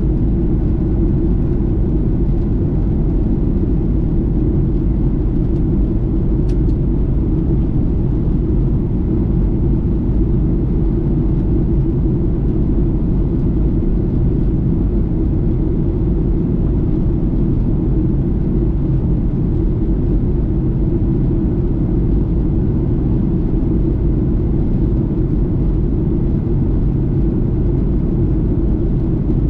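Steady low rumble of a Boeing 737-800 in flight, heard inside the cabin: engine and airflow noise that holds even throughout, with one faint tick about six and a half seconds in.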